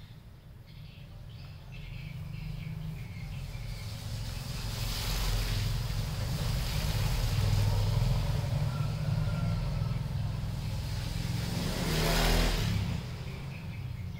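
A passing motor vehicle: a low rumble that grows louder over several seconds, swells again about twelve seconds in, then drops away.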